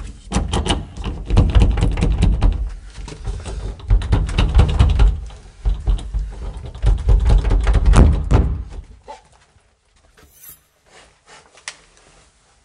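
Metal door knob rattled and twisted hard, the door knocking in its frame: a fast, uneven string of clicks and heavy thuds that stops about nine seconds in.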